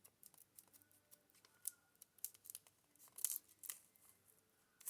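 Faint, irregular crinkles and small clicks of the deck's packaging and cards being handled, with a few sharper snaps around the middle.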